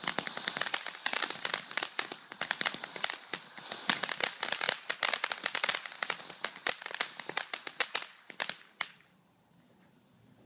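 A string of firecrackers going off: a rapid, dense run of sharp bangs for about nine seconds, thinning to a few separate pops and stopping about a second before the end.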